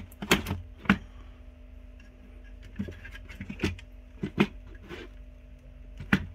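Irregular knocks and clatter of aquarium equipment, such as the heater and filter, being handled and removed from a tank. The knocks come in small clusters near the start, in the middle and near the end, over a steady low hum.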